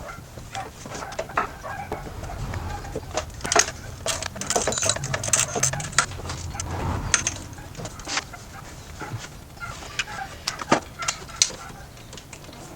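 Irregular metallic clinks, clicks and knocks of hand tools and bolts while a replacement alternator is fitted into the engine bay, busiest in the first half.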